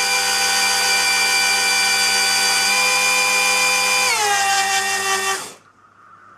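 Gaggia Brera espresso machine's built-in burr grinder motor running with a steady whine, dropping in pitch about four seconds in and stopping about a second later. The grinder is set all the way to its finest setting, so the motor has to work harder.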